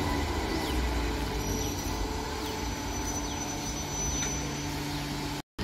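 MEMU electric multiple unit drawing into a station, a steady low electric hum and rumble from the train, with a faint thin high tone in the middle. The sound cuts out abruptly for a moment near the end.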